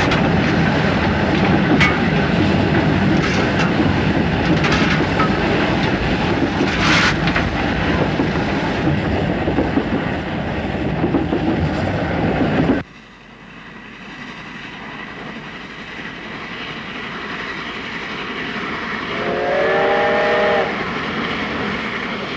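JNR C62 steam locomotive under way: loud, dense running noise with a few sharp knocks, cut off suddenly about 13 seconds in. It gives way to a quieter running sound that slowly builds, and the locomotive's steam whistle sounds for about a second and a half near the end.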